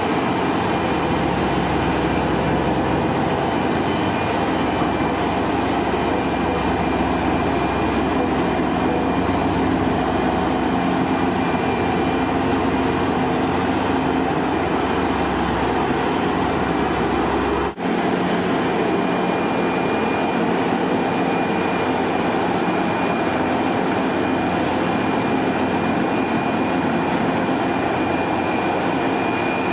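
Heavy road-construction machinery running steadily, a continuous engine-and-machine noise with a faint steady whine. It breaks off for an instant about 18 seconds in, then carries on much the same.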